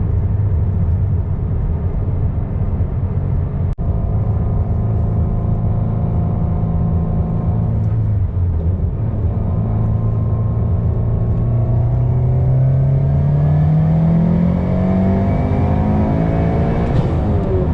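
Turbocharged 2.4-litre flat-four of a 2022 Subaru WRX with a Garrett G30-900 turbo kit and aftermarket cat-back exhaust, running at steady revs, then pulling with the revs climbing for about five seconds before falling back sharply near the end.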